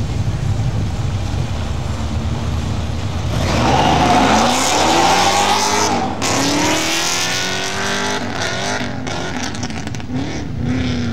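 Drag race cars, a Holden Commodore VR ute and an LPG-powered hotrod, launch off the line about three and a half seconds in and accelerate hard down the strip. Engine pitch climbs, drops at a gear change and climbs again, then fades near the end.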